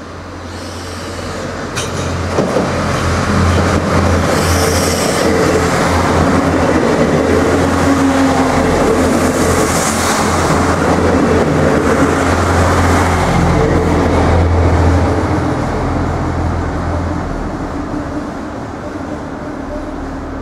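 Irish Rail 29000 class diesel multiple unit passing along the platform, its engine and wheels on the rails. It grows louder over the first few seconds, stays loud for the middle of the clip, and then fades over the last few seconds as it moves away.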